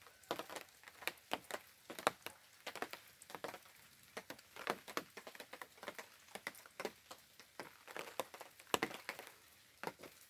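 Raindrops tapping irregularly on a plastic tarp overhead, several sharp drips a second.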